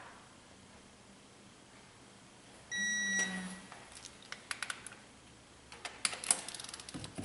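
Digital torque-angle wrench giving one steady electronic beep, about half a second long, as it reaches its 90-degree target on a cylinder head bolt. Then ratchet clicking in quick runs, densest near the end.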